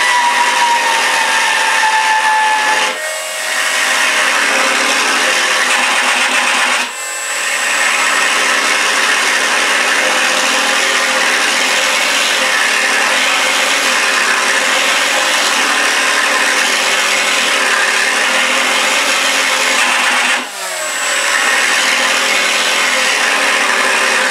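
FMS P-51B electric RC warbird running on a stand: the propeller is spinning while the MR RC Sound V4 module plays a simulated warbird engine sound through its small speaker, thin in the bass. The level dips briefly three times.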